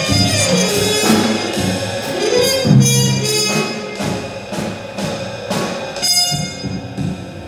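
Free-improvised trumpet and drum kit: the trumpet bends and slides between notes over loose drum and cymbal strokes. In the second half scattered drum and cymbal hits take over.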